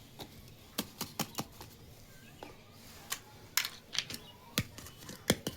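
Small plastic toy pieces clicking and tapping against each other as they are handled: a dozen or so sharp, irregular clicks, some in quick runs of two or three.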